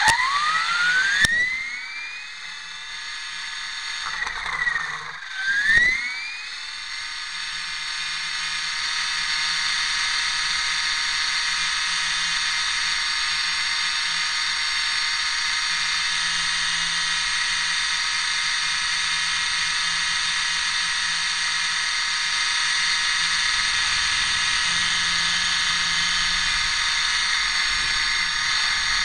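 RC helicopter's motor and rotor spooling up with a rising whine over the first couple of seconds, dipping briefly and climbing again about five seconds in, then holding a steady high whine.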